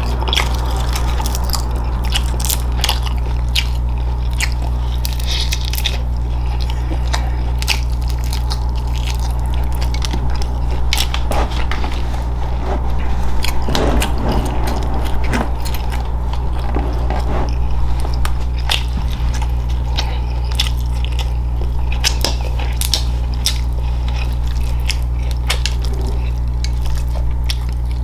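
Close-miked chewing and biting of food, with wet mouth clicks and smacks scattered throughout, over a steady low hum.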